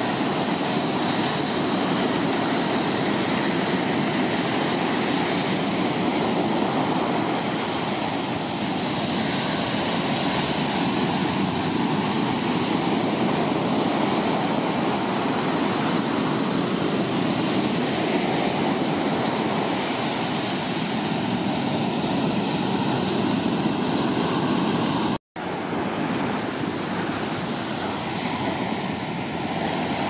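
Large ocean swell breaking and washing up the beach: a steady rush of surf. It cuts out for a split second about 25 seconds in.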